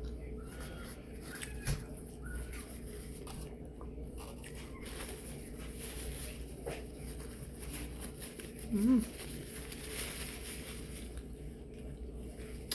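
Quiet eating sounds: chewing a sausage grinder sandwich with small crinkles and rustles of its paper wrapper, and a brief murmur of approval about nine seconds in.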